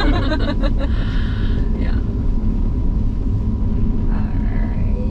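Steady low rumble inside the cabin of a GMC Hummer EV driving over an off-road course, from the tyres and body on rough, wet ground, with no engine note from the electric drivetrain.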